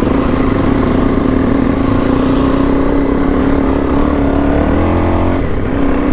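Suzuki DR-Z400E single-cylinder four-stroke engine running steadily under way; its note rises briefly about five seconds in and then drops back.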